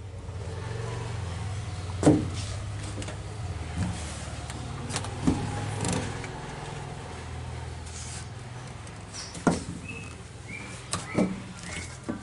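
Low, steady hum of a motor vehicle engine running nearby, slowly fading away over the last few seconds, with several sharp knocks and bumps scattered through it.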